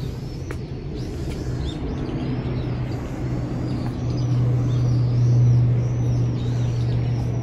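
Small birds chirping in quick, repeated short calls, over a steady low hum that swells about halfway through.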